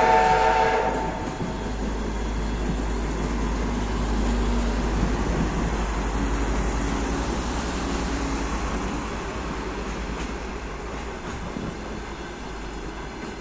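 A passing train: a short multi-tone whistle blast right at the start, then the steady rumble of carriages rolling by on the rails. The rumble slowly fades toward the end.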